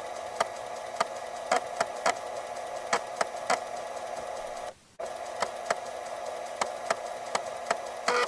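Floppy disk drive working: a steady hum from the spindle motor with irregular sharp clicks from the read/write head stepping, about two a second. The sound cuts out briefly about halfway through.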